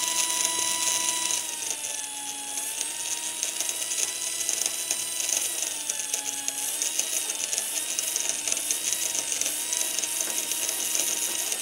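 Small brushed DC motor salvaged from a toy helicopter, driven through an L298N motor controller, running with a steady high whine. The pitch dips and recovers a couple of times as its speed is varied by the light falling on a light-dependent resistor.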